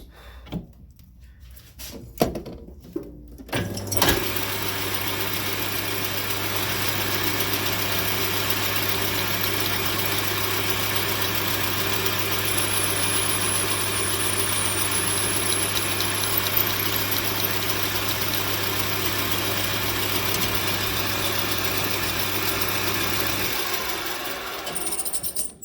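Clicks and knocks as the drill is set up, then a workshop machine's electric motor runs steadily for about twenty seconds while a drill bit bores the trumpet valve stem's tapping hole about 3 mm deeper. A thin high whine comes in partway through, and the motor winds down near the end.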